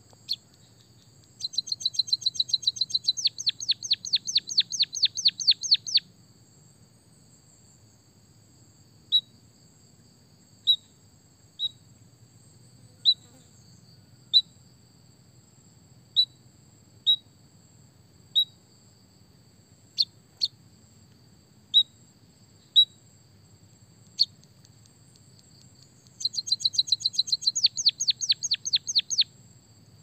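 White-headed munia chirping. It starts with a fast run of falling chirps, about four or five a second, for several seconds, then gives single high chips every second or so, and near the end another fast run. Under it all runs a faint steady high tone.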